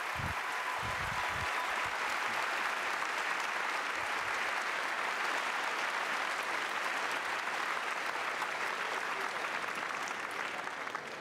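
A large auditorium audience applauding steadily, the clapping thinning and fading near the end.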